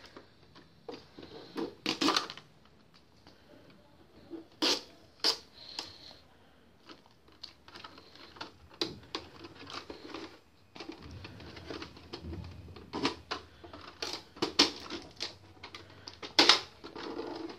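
Irregular plastic clicks, taps and crinkles as protective tape is peeled off the paper tray of an HP DeskJet 1112 inkjet printer and its plastic parts are handled.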